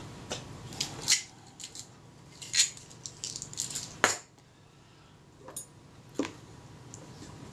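Scattered small clicks and light taps of hands handling a small lacquer bottle and fine tools on a workbench, the loudest a sharp click about four seconds in, followed by two fainter ticks.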